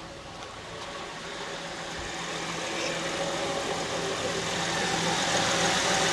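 2006 Honda Ridgeline's 3.5-litre V6 idling just after a restart, with a steady whine in the engine bay, growing louder over a few seconds. The owner puts the whine down to low power steering fluid making the power steering pump whine.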